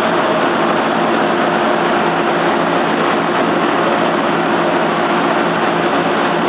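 Toyoda CNC lathe running: a steady mechanical hum with an even rush of noise, unchanging throughout.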